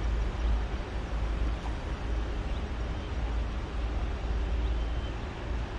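Wind buffeting the microphone outdoors: a steady low rumble with an even hiss over it.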